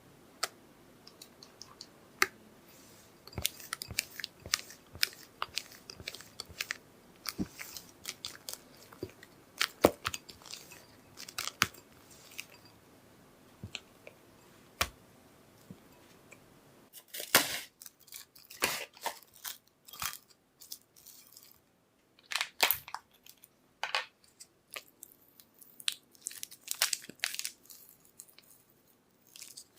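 Irregular crunchy clicks and crackles from food being handled in a kitchen. They come in scattered ones and twos at first and in denser, louder clusters through the second half.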